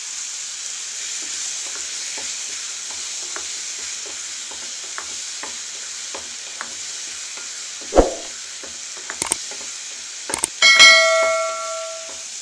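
Chopped tomatoes and onions sizzling in hot oil in a kadai while a spatula stirs and scrapes, with small clicks against the pan. A sharp knock comes about two-thirds of the way in. Near the end a bell-like ding is the loudest sound and rings out for about a second.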